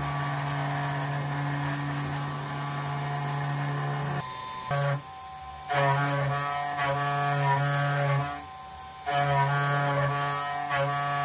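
Chinese 2.2 kW CNC router spindle running at about 9300 rpm while a small end mill rough-cuts a pocket in steel bar stock: a steady hum. About four seconds in, background music takes over, playing sustained notes in phrases with two short pauses.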